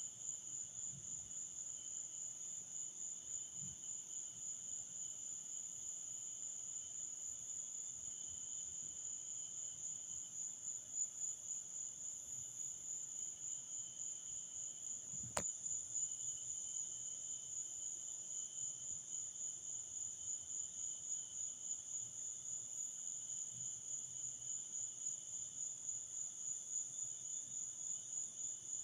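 Crickets chirping at night in a steady, fast, high-pitched trill, with a fainter lower-pitched insect song beneath it. A single sharp click comes about halfway through.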